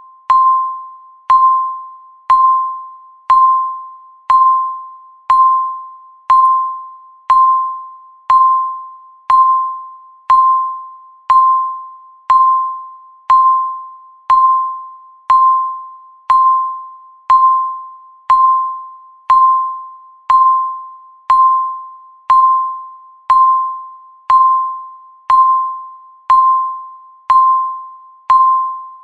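Countdown timer's per-second beep: one short, high electronic beep every second, each starting sharply and fading away.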